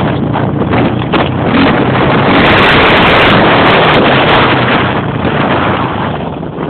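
Motocross bikes running hard up an uphill bend, growing loudest a few seconds in and then fading away.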